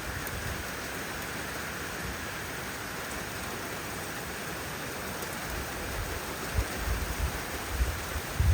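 Steady rain falling, an even hiss. From about six seconds in, low gusty thumps come through beneath it and grow stronger near the end.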